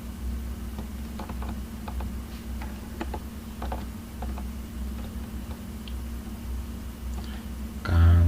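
Scattered light clicks from a computer mouse and keyboard, over a steady low hum.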